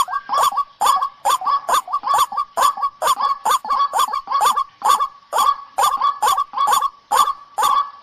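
White-breasted waterhen (ruak-ruak) calling: a rapid, unbroken string of harsh honking notes, about three or four a second.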